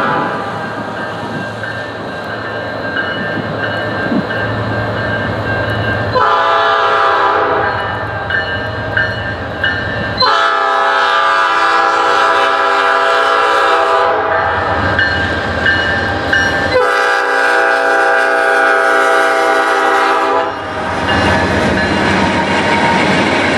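Freight locomotive approaching a grade crossing and sounding its horn in a series of long blasts from about six seconds in. The blasts end about twenty seconds in, as covered hopper cars roll past with their wheels clattering over the rails.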